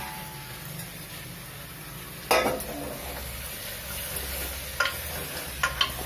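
Chopped pumpkin and potato sizzling in hot oil in an aluminium pressure cooker while a spatula stirs them. There is a louder scrape against the pot about two seconds in and a few light clinks near the end.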